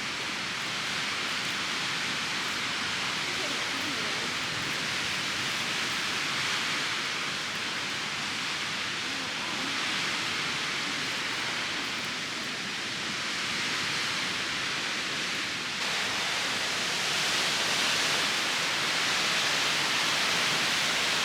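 Strong mountain wind rushing steadily, an even hiss that grows a little louder near the end.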